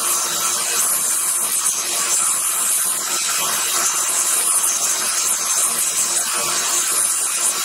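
Belt sander running with a steel cold chisel pressed against the abrasive belt: a steady grinding hiss of metal being ground.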